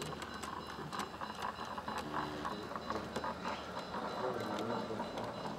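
Garden-scale model train, a Thomas the Tank Engine locomotive pulling coaches, running past on its outdoor track: a steady low motor hum with many light irregular clicks and rattles from the wheels on the rails.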